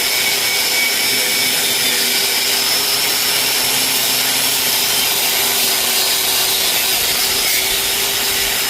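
A handheld power tool running steadily with a constant, even noise, scrubbing rust off the drill press's metal.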